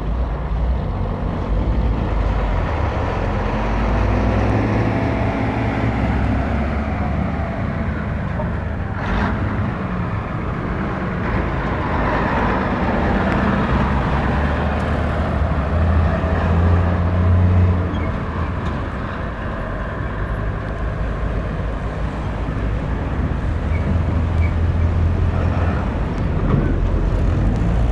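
Commercial truck traffic from a vintage vinyl sound-effects record: heavy truck engines run and pass in a continuous low rumble, and the engine pitch rises and falls as vehicles pull through. There is a brief click about nine seconds in.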